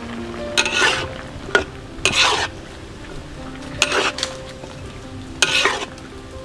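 Metal spatula scraping through a wok of squash chunks, pork and shrimp, four stirring strokes about one every one and a half seconds, with a sharp clink of metal on the pan, while the food sizzles. Faint background music.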